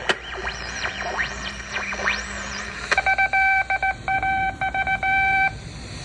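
Old valve radio being tuned: whistling tones sweep up and down across the dial, then a steady beep keys on and off in short and long dot-and-dash pulses, starting about three seconds in and stopping about halfway through the last second.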